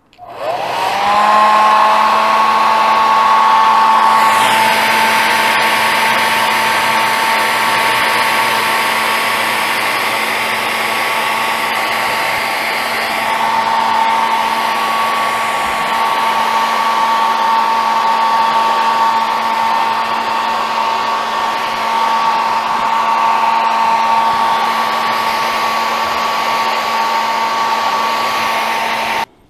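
Handheld hair dryer switched on, its motor whine rising as it spins up and then running steadily with a rush of air, shifting slightly in tone about four seconds in. It switches off abruptly near the end.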